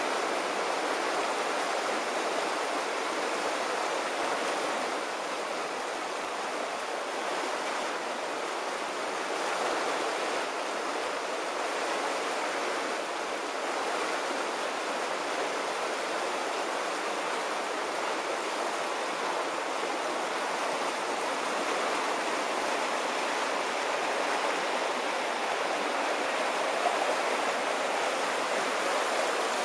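Floodwater rushing steadily, a continuous even rush of flowing water.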